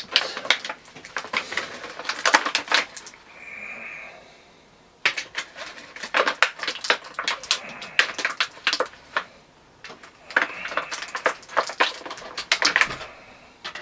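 A plastic action figure and its packaging being handled: bursts of quick clicks, taps and rattles of hard plastic, in three spells with short pauses between.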